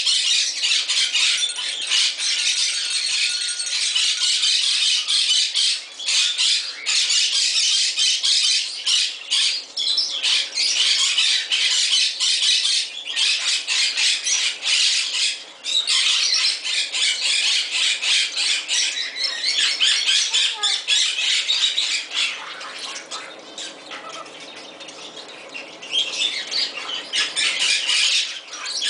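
Moluccan cockatoo flapping its wings and squawking as it climbs about a hanging rope perch, in a long run of busy, loud sound that eases off for a few seconds about three-quarters of the way through.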